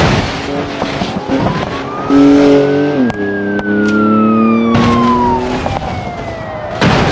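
Toy car's electronic sound effects: a siren tone rising slowly for about three seconds, then falling for about three more, over a steady engine-like hum that drops in pitch partway through, with loud bursts of noise.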